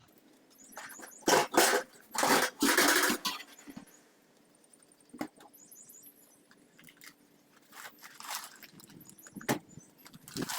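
Handling noise: loud rustling and scraping about a second in and again two to three seconds in, then fainter scrapes and a sharp click near the end.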